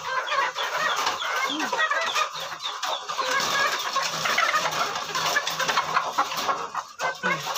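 Many caged laying hens clucking busily all at once, excited by the sight of feed.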